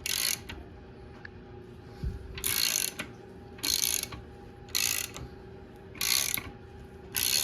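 Ratchet wrench clicking in six short bursts, about one every second, as it turns over the bare Honda K24A2 crankshaft. The crank spins freely and then gets hard, which the owner thinks may mean the main bearings are worn.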